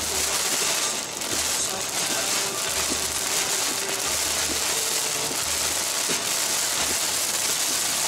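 Heavy rain driven hard against a car's windshield and body while driving, a steady loud hiss, with tyre spray and road rumble beneath, heard from inside the car.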